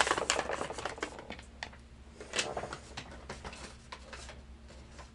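Paper rustling and crinkling as sheets are handled, with a string of small clicks and taps, busiest in the first second and with another brief rustle about two and a half seconds in.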